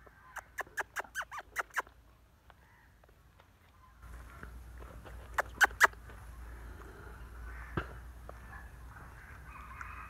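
Peafowl feeding, with a quick run of short, sharp clicks for about the first two seconds and three more a little past the middle. A steady background hiss comes up about four seconds in.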